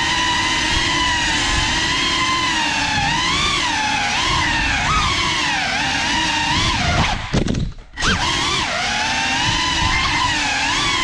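Brushless motors and ducted propellers of a GEPRC Cinelog35 FPV cinewhoop whining, the pitch rising and falling with the throttle. About seven seconds in the whine drops away almost completely for under a second, then comes back.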